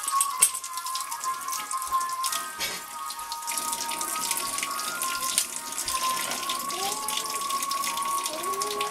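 A steam whistle on the stove blowing steadily at one pitch, over running tap water with splashing and light clatter at a sink.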